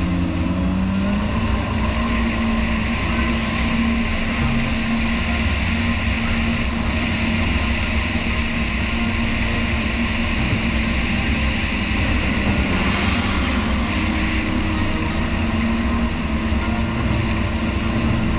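Jet ski engine running at speed over open water, a steady high drone over a constant rush of noise; its pitch steps up about a second in and shifts again near the middle.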